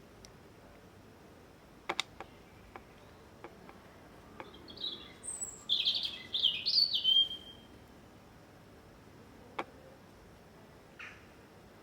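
A songbird singing a short burst of quick high chirps and trills in the middle, then one brief call near the end. A few sharp clicks sound in between.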